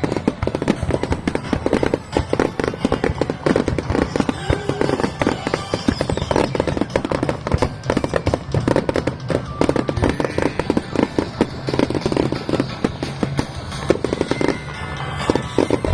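Fireworks going off in a dense, continuous run of rapid cracks and bangs.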